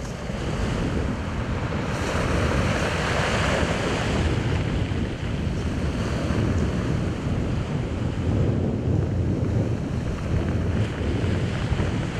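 Heavy surf breaking and washing onto a pebble beach in a steady roar of noise, with wind buffeting the microphone.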